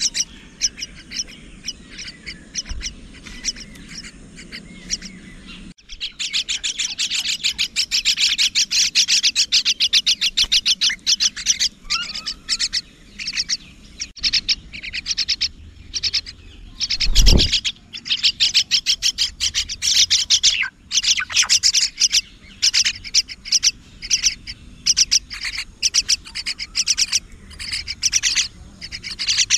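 Mynas chirping in fast runs of short, high calls repeated several times a second, suddenly much louder about six seconds in. A brief low thump sounds about two-thirds of the way through.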